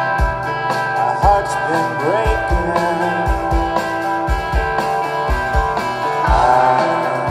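Indie rock band playing live over a PA, heard from the crowd: electric guitars over bass and a kick drum, with some gliding guitar notes.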